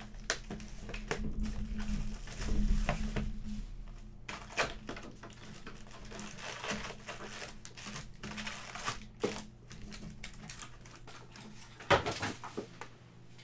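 Hands unwrapping a box of trading card packs: cellophane crinkling and tearing, with many small clicks and taps as the foil packs are handled and stacked. A single sharp knock comes about twelve seconds in.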